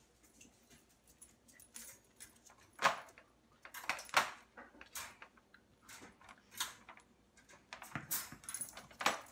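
Wire dog crate rattling and clinking in irregular, light metallic clicks and jingles as a dog moves about inside it, with a few louder knocks.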